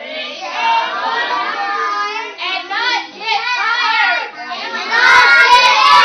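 A group of young children's voices, loud and overlapping.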